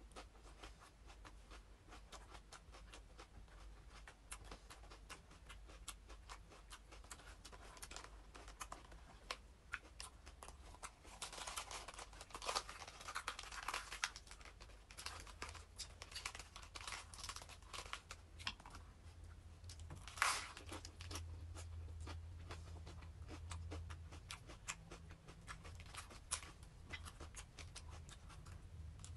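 Crisp iceberg lettuce leaves crackling and tearing as they are pulled off the head and handled. There is a dense run of crackling a little before halfway through and a single sharp snap about two-thirds of the way through.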